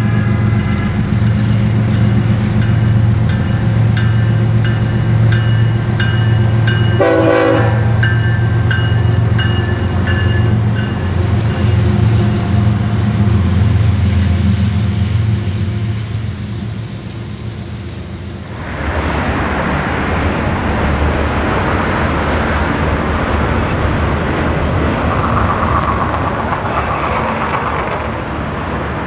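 A diesel locomotive engine running loud and steady, with a short horn blast about seven seconds in. About nineteen seconds in, the engine sound gives way to a loud rushing noise of rail cars rolling past.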